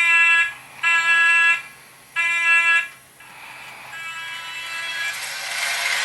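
Toy train diesel horn blowing three short buzzy blasts about a second apart. A rising rushing noise then builds, with the horn tone sounding on faintly inside it.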